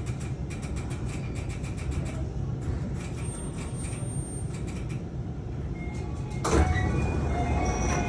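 Tsukuba Express TX-3000 series commuter train with its steady low hum. About six and a half seconds in, its sliding doors move with a sudden rush, and electronic door chime tones sound around it.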